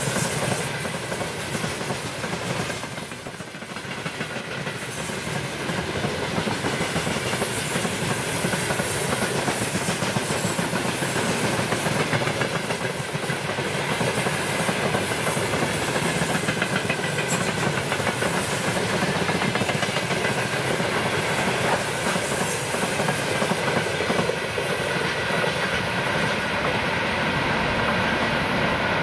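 Freight train of open-top gondola wagons rolling past at close range, the steady rumble and clatter of its wheels on the rails.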